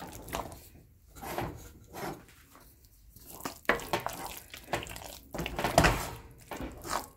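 Wooden churner (mathu) stirring and mashing thick cooked jackfruit in a metal pot: irregular, soft strokes of the mash, with a few sharper knocks of the wood against the pot in the second half.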